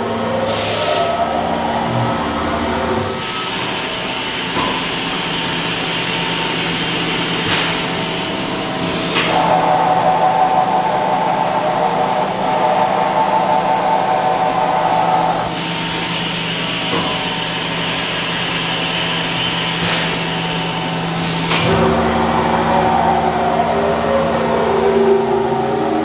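Haas VF-6SS CNC vertical machining center spindle running with a steady high-pitched whine that steps to a new speed three times, with a short hiss at each change.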